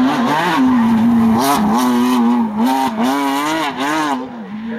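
Porsche 911 GT3 rally car's flat-six engine held high in the revs, its pitch wavering up and down as the throttle is worked through a slide, with several short bursts of tyre squeal. The engine note drops back about four seconds in.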